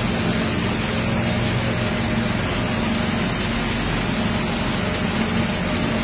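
Backhoe's diesel engine running steadily under a dense, even hiss.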